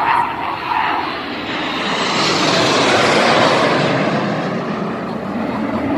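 Formation of display jets passing overhead: a rushing jet-engine noise that swells to its loudest about three seconds in, then fades away.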